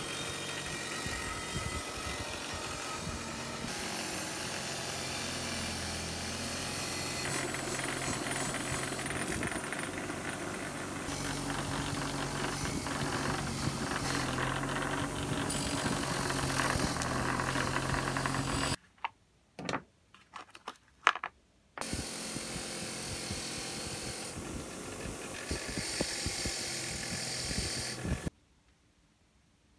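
Bench grinder running with rusty cast-iron hand plane parts pressed against its spinning wheel to clean them. The grinding stops for about three seconds past the middle, with a few clicks, then runs again and stops shortly before the end.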